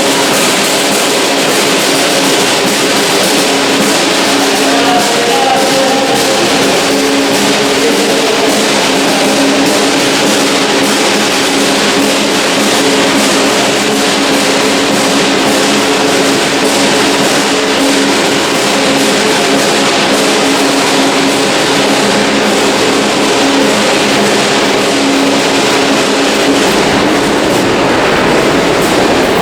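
A subway busker's music, with guitar, heard over the loud, steady running noise of a subway train in the station.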